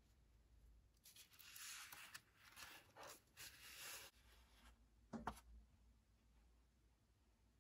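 Colored construction paper rustling and scraping as the folded paper tree is handled, with a single sharp tap about five seconds in, then quiet.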